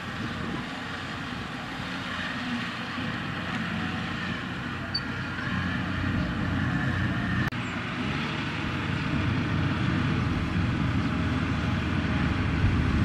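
Diesel farm machinery running steadily: a Kubota rice combine harvester working, then, after an abrupt break about halfway through, a farm tractor hauling a loaded trailer of rice sacks, a little louder.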